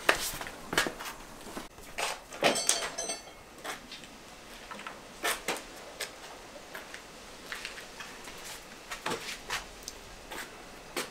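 Scattered knocks and clatter of handling, with a short metallic clink that rings briefly about two and a half seconds in.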